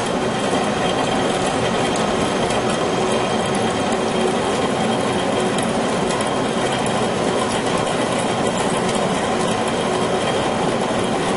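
Heavy machine-shop machinery running steadily: an even rattling noise with a faint steady hum underneath.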